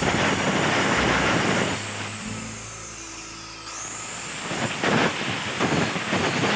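Electric power tool cutting green bamboo: a high whine rises as the motor spins up, then rasps as the blade bites. The cut runs for about the first two seconds, and after a second spin-up it comes in several rasping strokes near the end.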